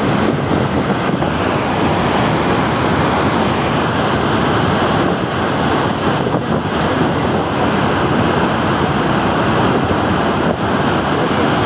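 Loud, steady rush of muddy floodwater and debris pouring down a river channel in spate, an unbroken noise with no separate splashes or knocks.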